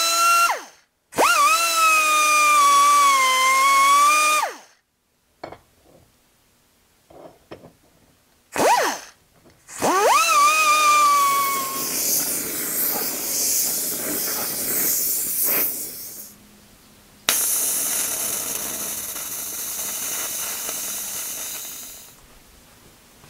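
A small die grinder spins up and runs twice with a high, steady whine that dips in pitch under load as it grinds out cracks in a cast-iron worm gear. From about halfway through, a gas welding torch flame hisses steadily in two long stretches as the cracked gear is heated for welding.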